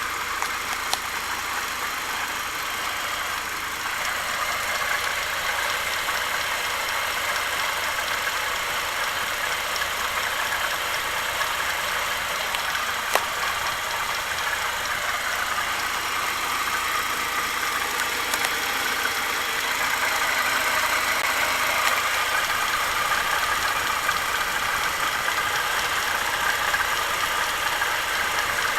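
ZMZ-409 inline-four petrol engine running warm with a knock from the front of the engine. The knock comes from the alternator drive belt, a piece of whose base has broken off. One sharp click stands out about halfway through.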